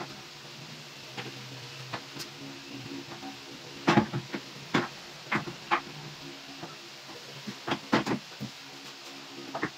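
Irregular sharp clicks and knocks from hand work on a laminated melamine cabinet's door and hinge fittings, a cluster about four seconds in and another near eight seconds, over a faint steady hum.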